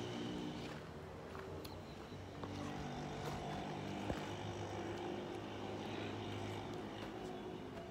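Steady low drone of a distant engine, with a sharp click about four seconds in.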